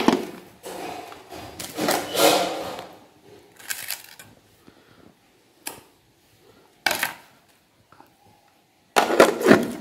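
Stainless steel pots and lids being handled on a table: a sharp clank at the start, then scattered scrapes, clinks and knocks, with a louder cluster of clatter near the end.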